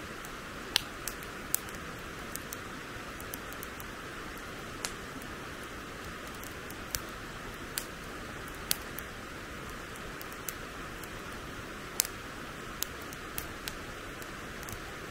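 Wood fire crackling: sharp, irregular pops about once a second over a steady hiss.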